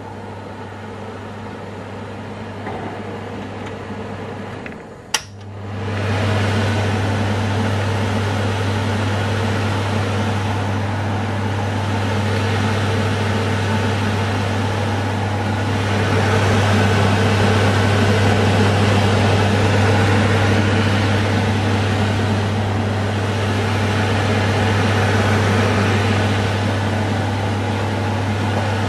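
Kitchen extractor hood fan running with a steady hum and rushing air. About five seconds in a switch clicks and the fan spins up to a louder speed, then runs steadily.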